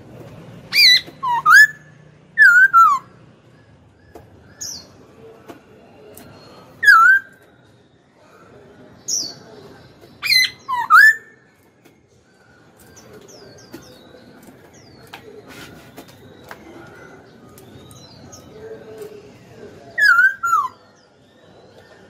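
Caged black-throated laughingthrush singing loud, slurred whistled notes that glide downward, in short phrases every couple of seconds. It falls quiet for several seconds in the middle, then sings again near the end.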